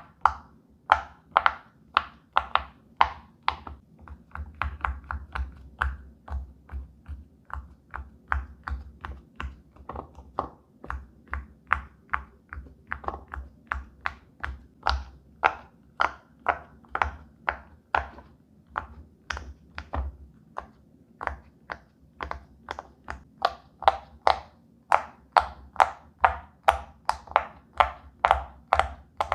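Silicone pop-it fidget toy bubbles being pressed down one after another, a steady run of short pops at about two or three a second.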